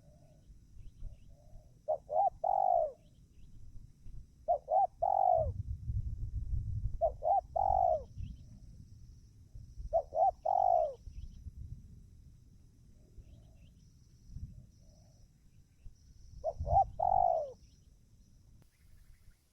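Spotted dove (tekukur) singing its cooing song: five phrases, each two or three short coos running into a longer falling coo, repeated every two to three seconds with a longer pause midway, and a few fainter coos between.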